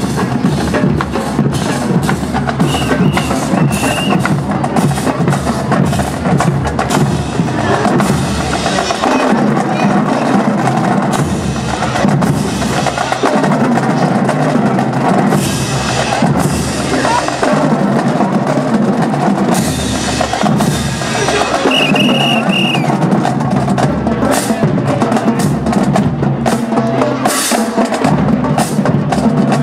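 Marching drum line playing snare and bass drums in a driving cadence with rolls, with a short high steady tone sounding twice, near the start and about two-thirds of the way through.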